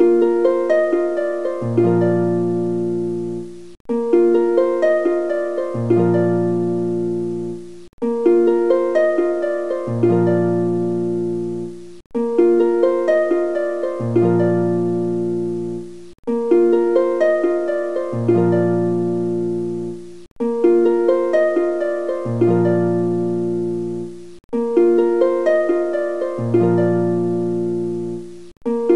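Background music: a short plucked-string phrase, harp-like, repeating as a loop about every four seconds with a brief gap between repeats.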